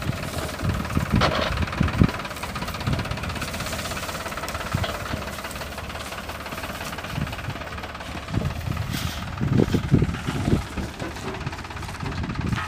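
Tractor engine running steadily while a potato harvester works, with irregular low knocks and clatter that come thicker about nine seconds in.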